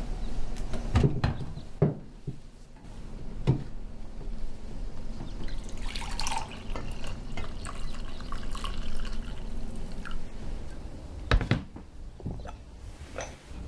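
Liquid being poured, a steady splashing run in the middle lasting about four seconds, with a few sharp knocks of crockery or objects set down before and after it.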